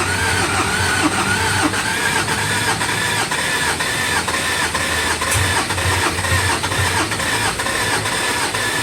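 The 2018 Ford Ranger's 2.2-litre four-cylinder diesel is being cranked by its starter in an even, pulsing rhythm and does not catch. The mechanic suspects a loss of compression.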